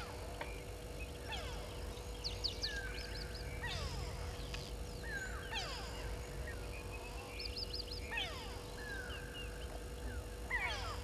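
Wild birds calling: many short chirps and repeated downward-sliding whistles, several birds overlapping, over a faint steady hum.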